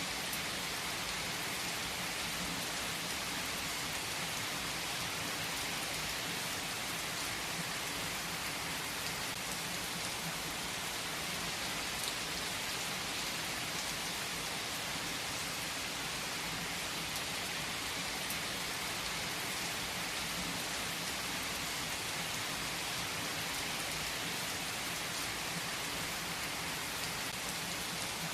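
Steady rainfall, an even hiss of drops on surfaces that holds at the same level throughout.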